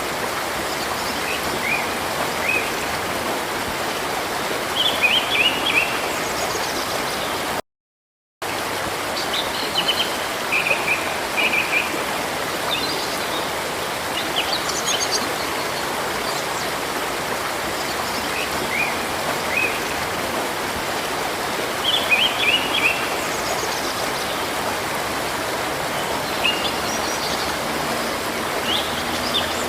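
Steady rushing of a river or stream, with small birds chirping in short scattered bursts every few seconds. The sound cuts out completely for under a second about eight seconds in.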